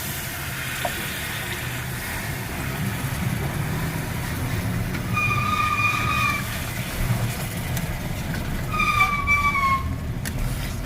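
A steady low engine rumble with two horn blasts of just over a second each, about five and nine seconds in; the second one falls slightly in pitch.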